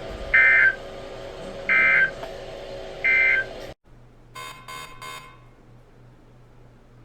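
Three Emergency Alert System end-of-message data bursts on NOAA Weather Radio, each a short, loud digital squawk, about a second and a half apart, marking the end of the alert. About four seconds in the audio cuts out to a much quieter background with a low hum and three brief faint beeps.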